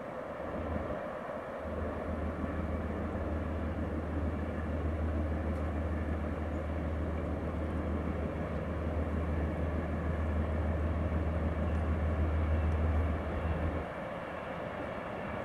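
Distant diesel freight locomotives of an approaching train running with a steady low rumble, which drops away sharply near the end.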